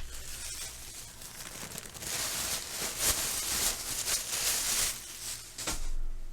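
Chip bag crinkling and rustling, loudest from about two seconds in to about five seconds, with a short burst of crinkling near the end.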